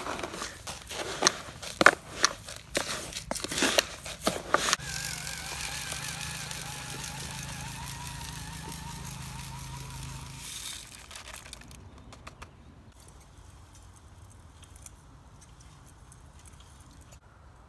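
Granules rattling and crackling into a plastic spreader hopper as they are scooped and poured by hand, then the small battery motor of a Scotts Wizz handheld spreader whirring steadily for about six seconds as it flings the granules, cutting off suddenly; only faint ticks follow.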